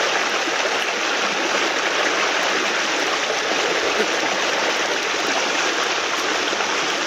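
Fast, shallow stream rushing steadily through whitewater riffles, a continuous even water noise.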